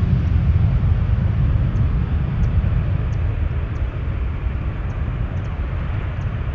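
Jet airliner engines rumbling, a deep steady roar that slowly fades.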